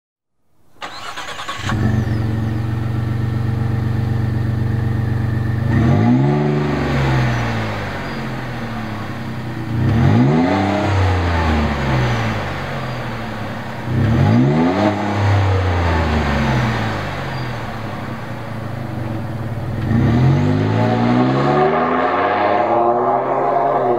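Ford F-150's 3.5L EcoBoost twin-turbo V6 through a Flowmaster Force II cat-back exhaust with a 70 Series muffler. It starts up about a second in and idles, is revved three times at about four-second intervals with each rev rising and falling back to idle, and then accelerates away under load near the end.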